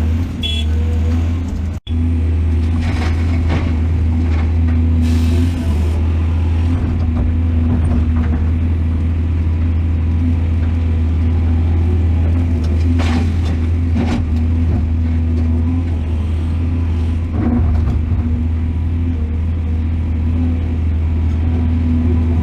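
Excavator's diesel engine running steadily with a deep, even hum, with a few short knocks and scrapes from the digging. The sound cuts out briefly just under two seconds in.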